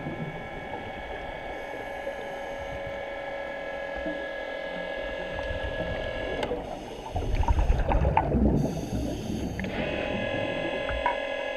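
Underwater scooter (diver propulsion vehicle) motor running with a steady whine, heard through the water. The whine cuts out about six seconds in, a rush of exhaled regulator bubbles follows, and the whine starts again near the end.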